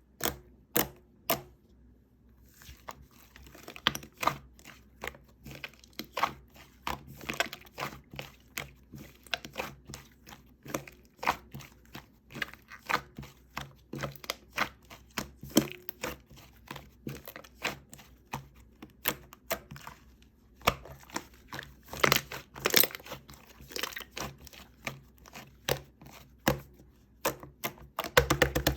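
Slime being squeezed, poked and stretched by hand, giving an irregular stream of sticky clicks and small pops.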